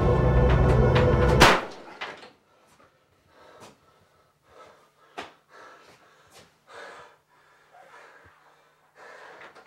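Loud eerie music cuts off abruptly as a wooden closet door slams shut about a second and a half in. After that, only faint scattered knocks and rustles.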